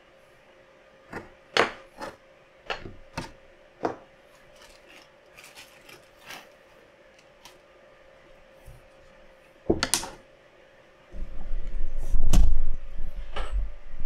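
Light clicks and knocks of PC case parts being handled and fitted together by hand, scattered and irregular. About eleven seconds in, a louder low rumble with heavier knocks takes over.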